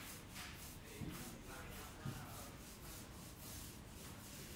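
Paint roller being worked over a wall in repeated rubbing strokes, with two soft knocks about one and two seconds in.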